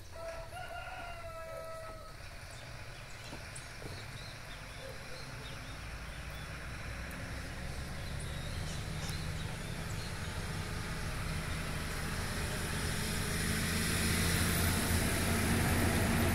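A rooster crows once in the first two seconds. Then the engine hum of a road vehicle grows steadily louder, loudest near the end.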